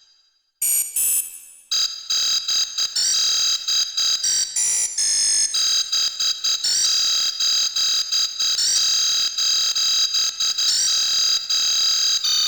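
Piano app played by an unskilled player: a bright, synthetic, high tone struck rapidly over and over, mostly on one pitch, with a few changes of note around a second in and again around the middle.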